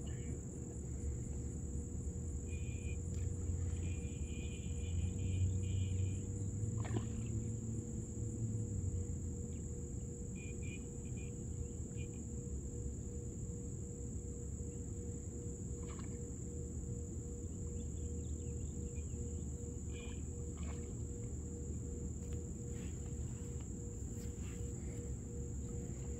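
Steady high-pitched drone of an insect chorus, one unchanging tone, over a low rumble, with a few short chirps now and then.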